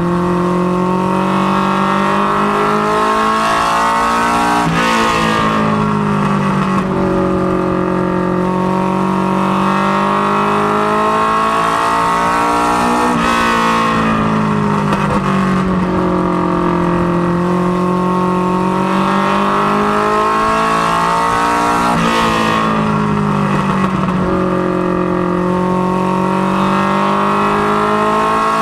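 Mustang notchback ministock race car's engine heard from inside the cockpit, running hard at high revs. Its pitch sags and climbs again about every nine seconds as the car laps the oval.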